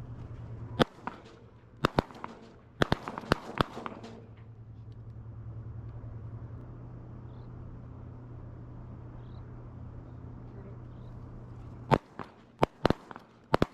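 Shotgun shots from several hunters: a quick volley of about six shots in the first few seconds, then another volley of about five near the end, over a steady low hum.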